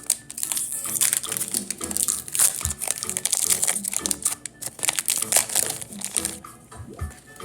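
Foil Pokémon booster pack wrapper crinkling as it is handled and opened, over background music with a steady beat. The crinkling stops about six seconds in.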